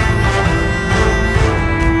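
Instrumental background music with sustained, held notes.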